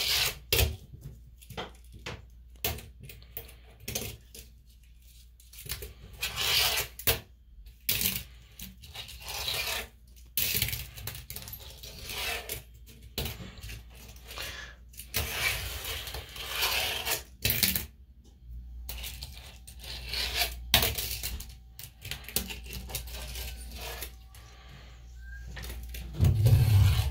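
Fingerboard wheels rolling and scraping around a porcelain sink basin, broken by many sharp clacks as the little board lands and knocks against the ceramic. A louder low thump comes near the end.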